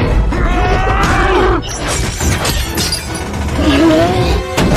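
Action film soundtrack: music under loud crashes and clattering impacts, with a character yelling, the loudest yell near the end.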